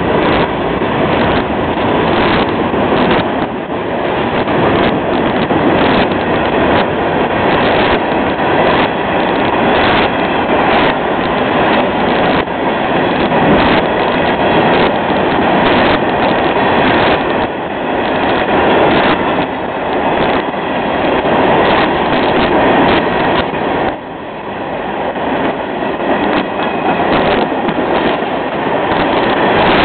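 Florida East Coast Railway freight cars, open-top hoppers and gondolas, rolling past close by: a steady loud rumble of steel wheels on the rails, broken by frequent clacks as wheels cross rail joints.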